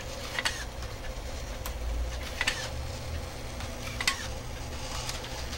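Small wheeled robot's electric motors running with a steady low hum, and sharp irregular clicks from its mechanism about once a second as its head moves.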